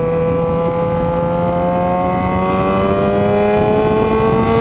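Yamaha XJ6's inline-four engine through a Power GP2 4x1 full aftermarket exhaust, pulling in a lower gear after a downshift. The note sags a little at first, then climbs slowly as the revs rise.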